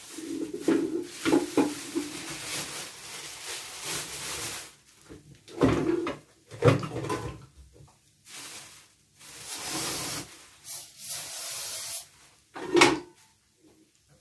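Irregular knocks and clunks, as of things being handled and set down, with a stretch of hiss about ten seconds in and a sharper knock near the end.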